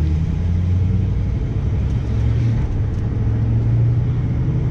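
Ford F-450 Super Duty's Power Stroke diesel engine rumbling from inside the cab as the truck pulls away and picks up speed, its low hum rising a little in pitch partway through.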